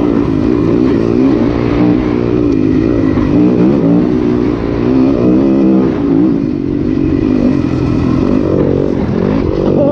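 2019 Yamaha YZ250FX dirt bike's 250 cc four-stroke single-cylinder engine running under way on a trail ride. Its revs rise and fall continuously as the throttle is worked.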